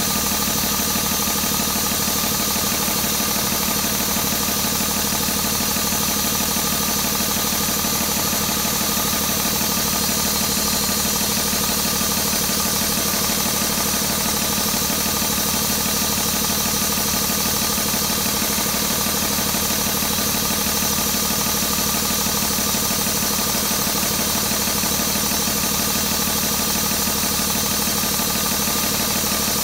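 2012 Paccar PX-6 inline-six diesel engine idling steadily, with an even, rapid firing pulse.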